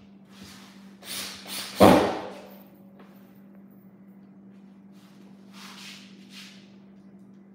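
A few short rustling and knocking handling noises, the loudest a thump about two seconds in, with two faint rustles near the end, over a low steady hum.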